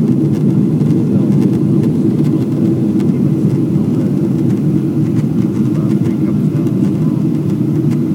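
Steady, loud cabin noise of a Boeing 777-300ER climbing through cloud just after takeoff: its GE90 jet engines and the rushing air, heard from a window seat inside the cabin.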